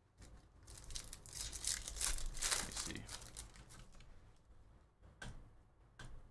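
A 2023 Topps Stadium Club baseball card pack's wrapper being torn open and crinkled, starting about a second in and lasting two to three seconds, followed by a few light clicks of cards being handled near the end.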